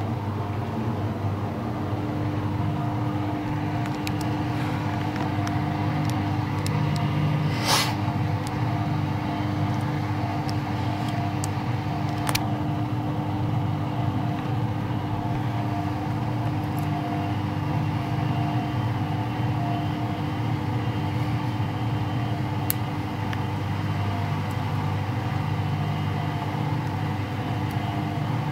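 Beko washing machine running, a steady motor hum and drum rumble, with a few sharp clicks or knocks, the loudest about eight seconds in and another about twelve seconds in.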